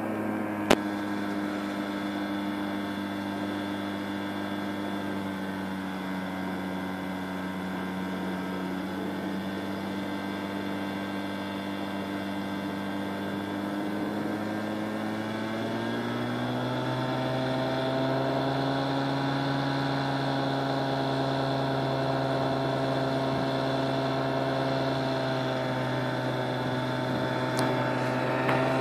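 Rotax 582 two-stroke engine of a Fly Synthesis Storch ultralight running steadily after a cold start. Past the middle its speed rises smoothly and holds at a higher, steady pitch. A single sharp click comes about a second in.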